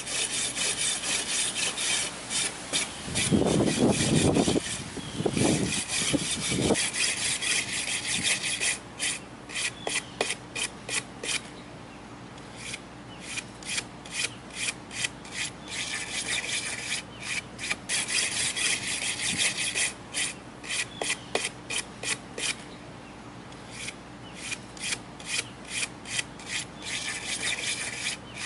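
Stiff hand brush scrubbing back and forth along the grain of a cedar board, a rapid run of rasping strokes several per second, with short pauses about twelve and twenty-three seconds in. A louder low rumbling noise comes about three to seven seconds in.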